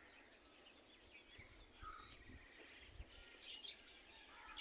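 Faint, scattered chirping of small birds over a quiet outdoor background.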